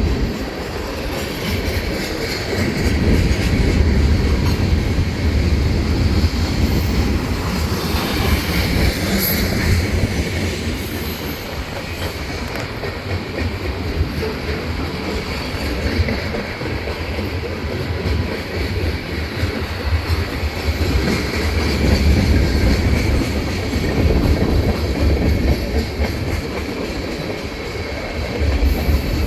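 Union Pacific freight train cars rolling past in a steady heavy rumble, wheels clacking over the rail joints. A few brief wheel squeals come a third of the way through.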